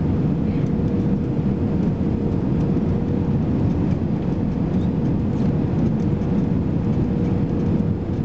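Airbus A320-214 cabin noise on final approach: the engines and airflow over the wing make a steady low roar, with a faint steady tone through it that fades out for a couple of seconds in the middle.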